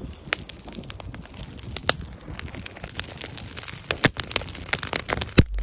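Newly lit campfire of dry split kindling and birch crackling, with irregular sharp pops and snaps as the flames catch. A low bump near the end.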